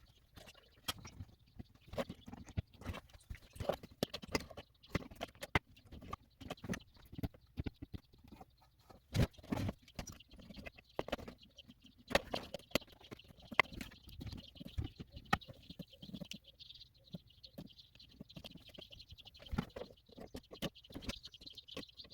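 Audio amplifier being switched on for the first time after a chip replacement, giving irregular crackling and popping. A steady high hiss joins about two-thirds of the way through.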